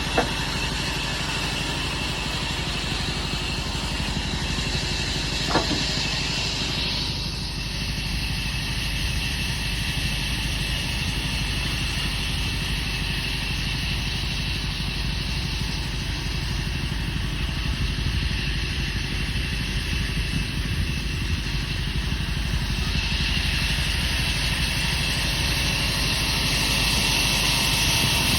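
Woodworking machinery running steadily with an engine-like low hum, a brief click near the start and another a few seconds later; a higher hiss rises in near the end.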